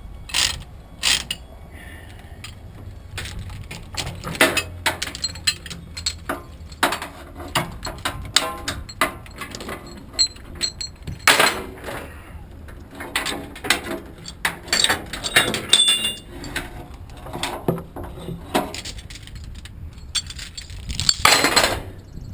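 Steel tie-down chains and chain binders clinking and clanking as they are handled and released on a lowboy trailer deck: irregular metal clinks and knocks, with a longer chain rattle near the end.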